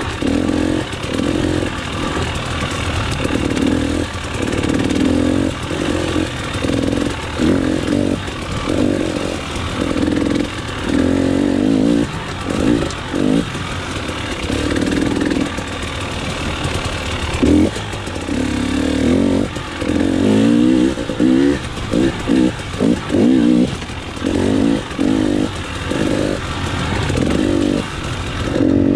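KTM 300 TPI two-stroke dirt bike engine ridden off-road, the throttle opened and shut over and over so the revs rise and fall in short bursts. The bursts come quickest and choppiest in the last third.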